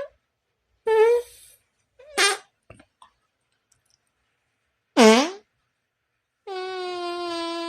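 A string of separate imitation fart sound effects: short buzzing blasts, a loud one whose pitch dips sharply and comes back about five seconds in, and a long steady-pitched buzz near the end.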